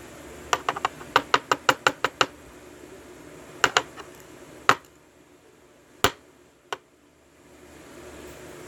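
Sharp metallic clicks and taps of small lock parts being handled while a Euro lock cylinder is taken apart and its pins removed: a quick run of about ten clicks in the first two seconds, then a pair of clicks and a few single taps spaced out.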